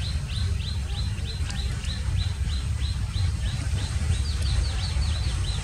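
A bird calling in a fast, even series of short downward-sweeping chirps, about five a second, over a steady low rumble.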